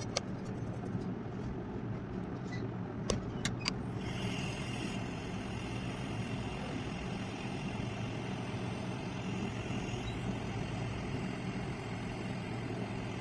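A steady low mechanical hum with a few sharp clicks in the first four seconds; a higher hiss joins at about four seconds and holds.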